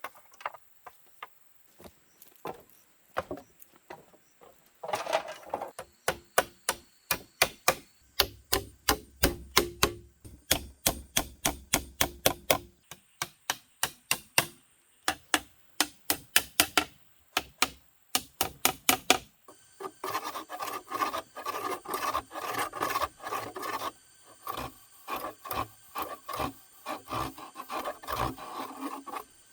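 Wood being worked by hand: a long run of sharp wooden knocks at about two a second, then, about two-thirds of the way in, back-and-forth sawing strokes through wood.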